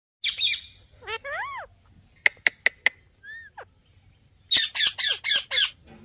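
Indian ringneck parrot calling: a harsh squawk, a few whistled notes that rise and fall, a quick run of four sharp chips, then a burst of five rapid harsh screeches near the end.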